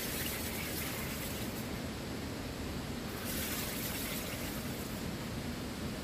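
SodaStream carbonator injecting CO2 into its bottle of water: hissing, bubbling bursts each about a second and a half long, one at the start and another about three seconds in.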